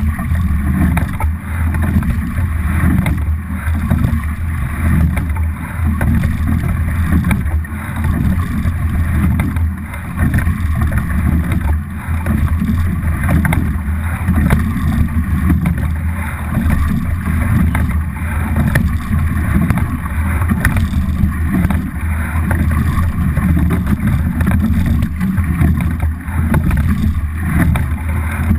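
Water rushing along the hull of a double scull being rowed, with steady low wind buffeting on a microphone fixed to the boat.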